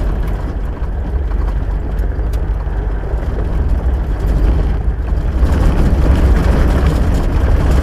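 Vehicle driving off-road, with a steady low rumble of engine and tyres that grows somewhat louder about five and a half seconds in.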